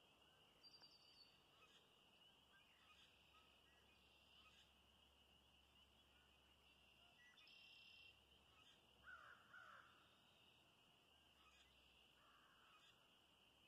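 Faint marsh ambience at dusk: a steady high-pitched chorus with a few scattered bird calls. A quick run of high notes comes about a second in, and the loudest calls, a short flurry of sweeping notes, come about nine seconds in.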